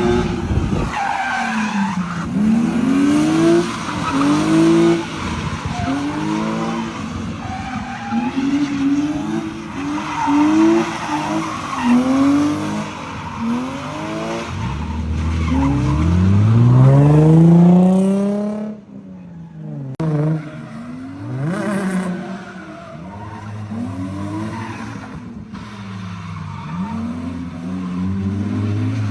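Car engine revving up and down over and over while the tyres screech in a drift. About halfway through, one long rising rev is the loudest moment; the sound then drops away abruptly before the revving picks up again.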